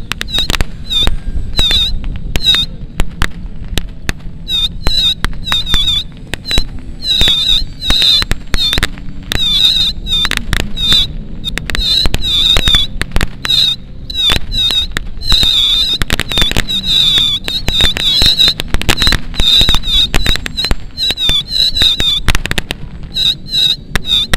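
Pyrotechnic charges popping and crackling in quick, irregular succession, simulating bomb and gunfire hits during a mock air raid by model warplanes. A repeated high wavering chirp sounds over the bangs.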